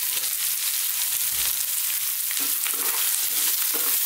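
Diced raw potatoes sizzling as they land in hot groundnut oil with onion, garlic and ginger in a frying pan, then stirred with a wooden spatula: a steady hiss with small clicks and, in the second half, scraping.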